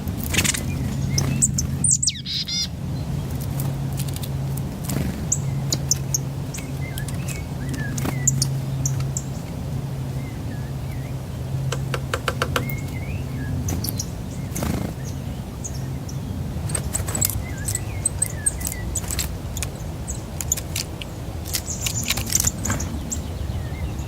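Small birds at a feeder making short high chirps and calls scattered through, among many sharp clicks and taps, over a steady low hum.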